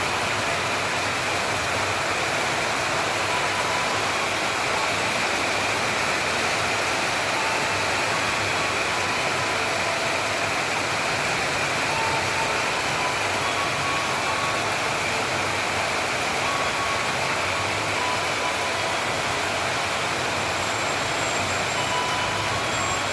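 Heavy rain falling in a steady, even hiss, with no thunderclap.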